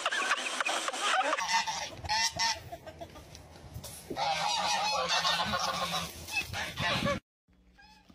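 Domestic geese honking again and again in short bursts, cut off suddenly near the end.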